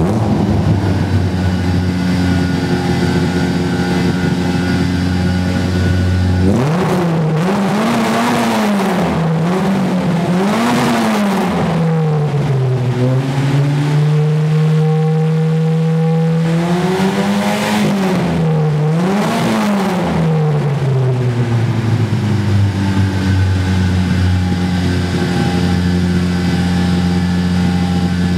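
Citroën Saxo 1.6 8V rally car's four-cylinder engine idling just after a start, through its sport exhaust. About six seconds in it is revved in a run of short throttle blips, holds a slightly raised speed for a few seconds, is blipped twice more, then settles back to a steady idle.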